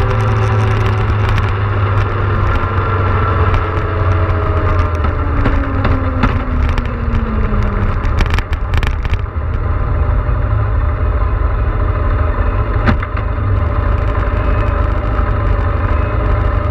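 Motorcycle riding at road speed, with heavy wind buffeting on the microphone over the engine's steady running; the engine note drops gradually in pitch as the bike slows, a few seconds in.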